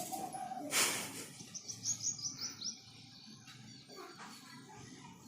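A small bird in the background singing a quick run of about eight short, high, falling notes, over faint background noise. A brief broad noise comes just before the song.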